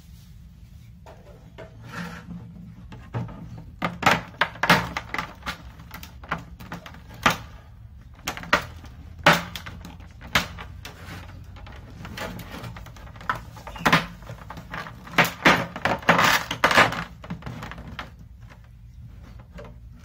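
Irregular knocks, taps and plastic clatter as a PVC pipe is worked into a large plastic water jug and a wire fan guard is handled, coming in clusters, busiest early and again near the end, over a steady low hum.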